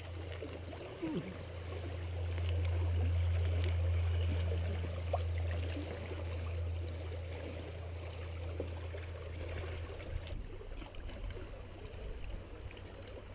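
Wind rumbling on the camera microphone, swelling about two seconds in and easing after about ten, over a faint wash of small waves on the rocks.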